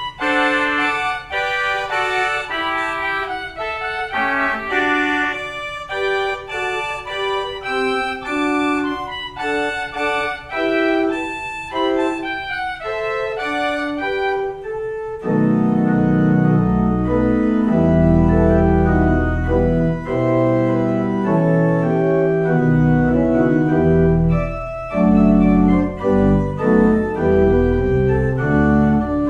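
Church organ playing a brisk piece with bright, high notes. About halfway through, a deep pedal bass and lower, fuller chords come in and the music gets louder.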